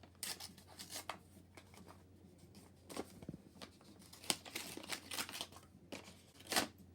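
Paper crinkling and tearing in short, irregular bursts.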